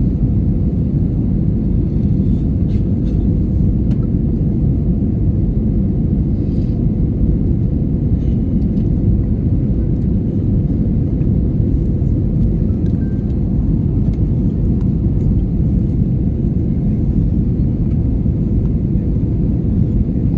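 Steady low rumble of an airliner's passenger cabin in flight on approach: engine and airflow noise, with a faint steady hum over it.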